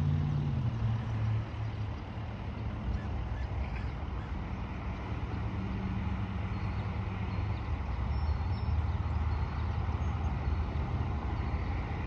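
Engine running with a low hum that drops in pitch in the first second or so, then settles into a steady rumble.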